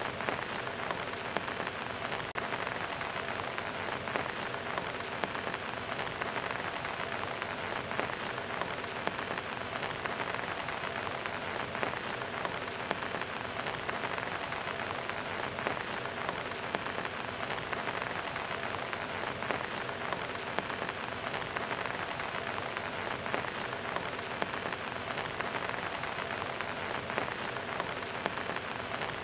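Steady rain falling onto a concrete wall, a dense, even patter of drops splashing with many small individual drop impacts.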